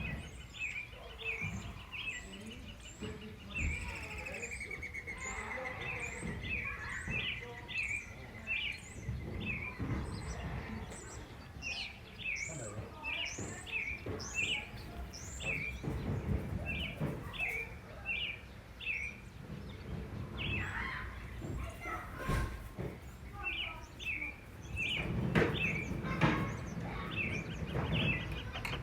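Songbirds chirping: a long run of short, repeated chirps, one to two a second, with higher down-slurred notes mixed in. Under them runs a low, uneven background noise that swells briefly near the end.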